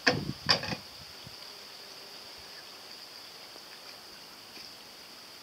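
A small homemade toy boat is pulled up out of the water, making two quick splashes about half a second apart. After that there is only a faint, steady, high-pitched hiss.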